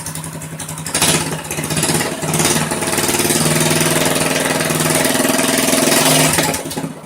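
Predator 212 single-cylinder four-stroke engine with a Stage 1 header pipe, jet kit and velocity stack, running loudly just after its first start. It idles, is revved up about a second in, and after a brief dip is held at a higher speed for several seconds before dropping back near the end.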